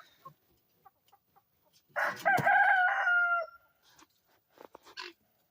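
A rooster crowing once, about two seconds in, a single crow of about a second and a half that ends on a held note.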